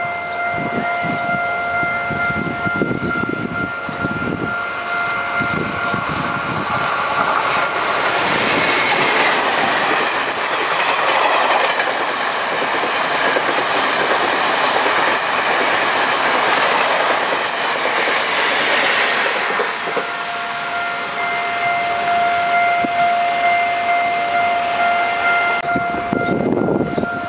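Railway level-crossing warning bell ringing as a steady tone, drowned out for about ten seconds in the middle by a loud rushing noise from the approaching Taiwan Railways E1000-series push-pull express train. The bell tone comes back and stops near the end.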